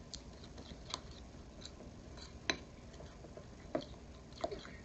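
A spoon stirring tahini salad dressing in a small metal bowl, clinking lightly against the bowl about once a second.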